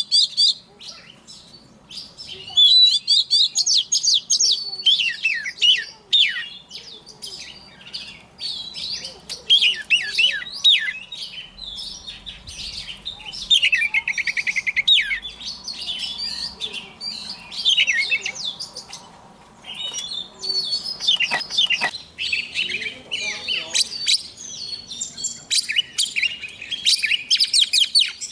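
Oriental magpie-robin singing: a long run of varied whistled phrases, quick chirps and trills with short pauses between them, including a drawn-out trill about halfway through.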